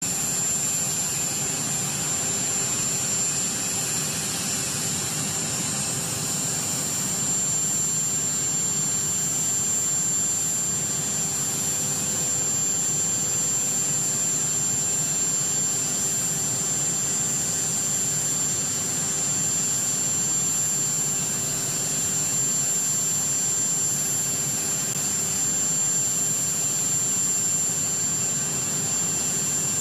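Jet aircraft engines running steadily on the ground: a continuous rush with a steady high-pitched whine, from a Boeing 747-based Air Force One.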